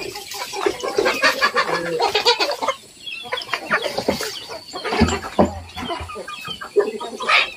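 Village chickens (ayam kampung) clucking, several birds calling at once in quick, overlapping clucks.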